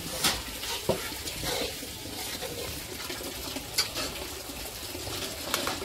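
Food cooking over a wood fire: a steady sizzling hiss, with a few sharp clicks and knocks.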